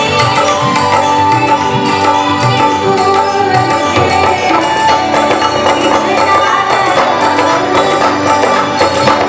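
Live Maithili folk song: tabla and harmonium accompanying a woman's singing voice.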